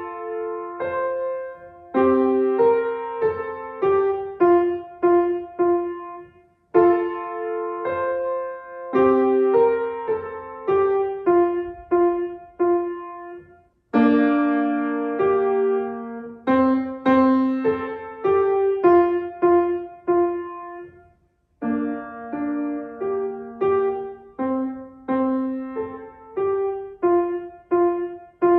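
A child playing a simple folk-song melody on a grand piano, note by note in the middle range, in four short phrases with brief breaks between them.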